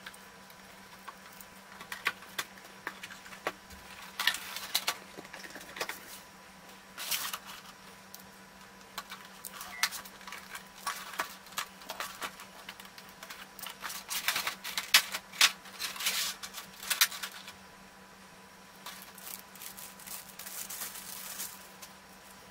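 Cardboard figure box and clear plastic blister tray being handled and opened: irregular clicks, crackles and rustles of stiff plastic and cardboard, busiest through the middle, over a faint steady hum.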